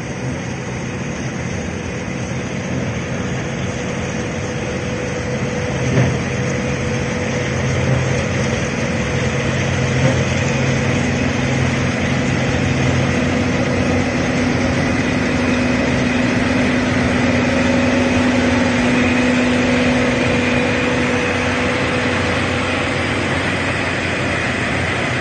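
Gleaner M3 combine running steadily while harvesting wheat: a continuous engine and machinery drone with a humming tone that steps up in pitch about halfway through, and a light knock about six seconds in.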